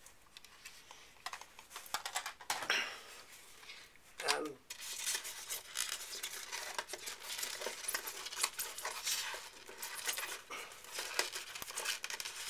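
Hands handling a plastic model railway coach in a foam packing tray: rustling, light scraping and many small clicks as it is lifted and pressed back into its slot, busiest from about five seconds in.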